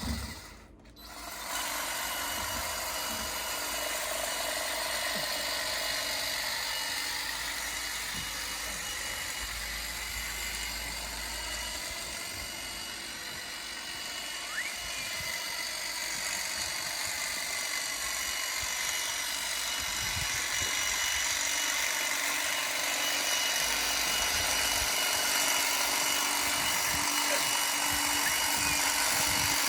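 Ego cordless telescopic hedge trimmer running steadily, its motor and reciprocating blades whirring, starting up about a second and a half in and growing a little louder in the second half.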